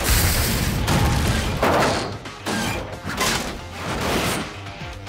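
Cartoon action soundtrack: dramatic music under a run of loud booms and crashes, about one a second.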